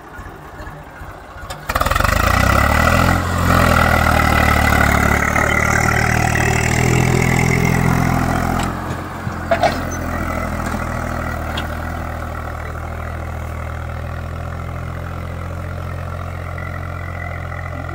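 Swaraj 735 FE tractor's three-cylinder diesel engine opening up suddenly under heavy load about two seconds in, its pitch wavering as it hauls a loaded sand trailer out of soft sand. About nine seconds in it eases off, with one sharp knock, and then runs on steadily at a lower level.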